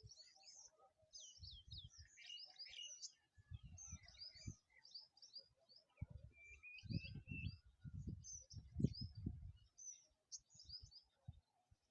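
Small birds chirping and twittering, with many quick high calls overlapping throughout. Low rumbling bursts come and go, the strongest in the second half.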